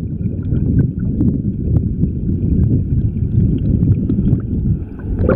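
Stream water heard through an underwater camera: a muffled low rumble, with faint ticks and knocks scattered through it.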